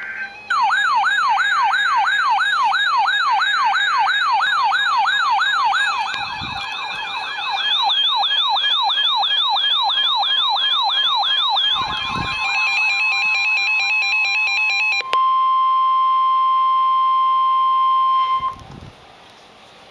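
Electronic alert tones: rapid siren-like up-and-down wails, several layered at once, for about twelve seconds, then a few seconds of stepped beeping, then one steady alert tone held about three seconds that cuts off near the end. The steady tone fits the single 1050 Hz warning alarm tone of NOAA Weather Radio.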